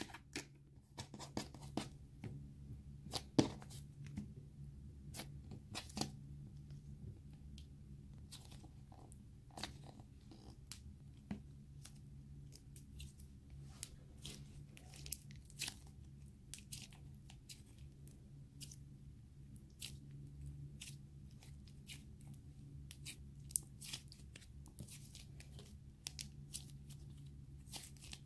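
Butter slime (light air-dry clay) being stretched, pulled apart and squeezed by hand, giving faint, irregular sticky clicks and crackles over a low steady hum.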